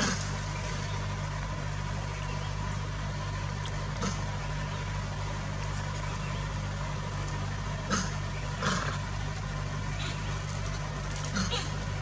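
Steady low hum, like an idling engine, broken by a few short brief sounds about four, eight and eleven seconds in.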